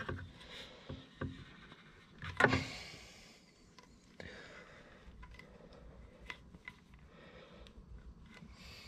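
Handling noise of a rubber hose being pushed and pulled through a rubber grommet in a motorcycle air cleaner backing plate: quiet rubbing and scraping with a few small clicks, and one louder scuff about two and a half seconds in.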